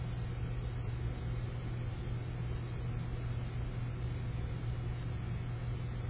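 Steady low hum with an even hiss above it, unchanging throughout; no bird calls stand out.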